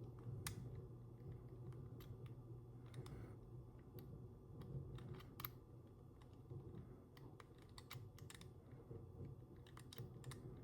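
Faint, irregular clicking of the number wheels on a Master Lock ProSeries 1177D combination padlock being turned one by one while the shackle is pulled, feeling each wheel for a false gate to decode the combination.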